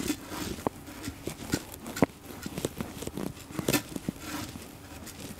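Granular aquarium soil being poured by hand into an empty glass tank: pellets pattering and clicking irregularly on the glass and on the soil already laid, with a few sharper ticks among them.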